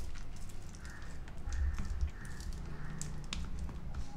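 Steel spoon pressing and spreading a sticky peanut-and-jaggery candy mixture across a greased steel plate: scattered faint clicks and taps of the spoon on the nuts and plate, over a low rumble.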